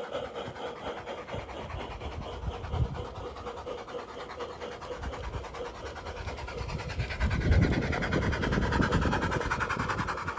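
G scale model train running along garden track: a steady low rumble with rapid, even clicking from the wheels and running gear, louder about seven and a half seconds in.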